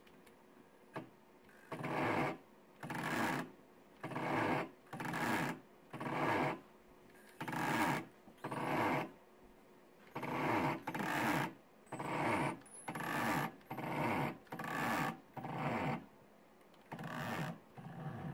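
Small stepper motors of DVD-drive sleds jogging in about fifteen short moves, each a buzzing run of under a second, roughly one a second. They are stepped from software arrow commands while the stepper driver on the Arduino CNC shield, run at 12 V, is being adjusted.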